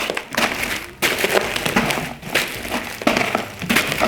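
Footsteps crunching on gravel in a cardboard box, a Foley stand-in for footsteps, at a steady pace of about one step a second.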